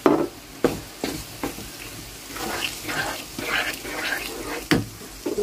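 Garlic cloves frying in mustard oil with tamarind sauce just added, sizzling and crackling as a wooden spatula stirs them in the frying pan. Several sharp knocks of the utensil on the pan come in the first second and a half, and one more near the end.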